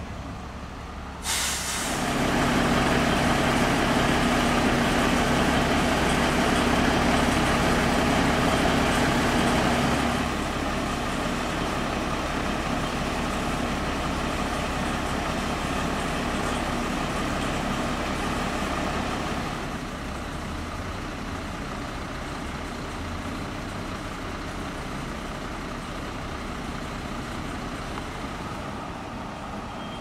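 Fire engine air brakes hiss sharply about a second in, followed by the truck's diesel engine running close by with a steady low hum. Its level drops at about ten seconds and again near twenty, leaving a quieter steady engine rumble.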